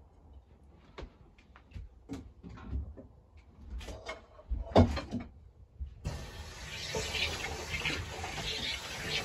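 Light clinks and knocks of a bowl and spoon over a cooking pot, then, from about six seconds in, a steady rush of water from a tap running into a stainless-steel sink.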